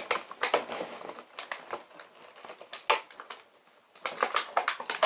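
Plastic and cardboard packaging crinkling and crackling in irregular sharp clicks as action figures are worked out of their box, with a brief lull a little over three seconds in.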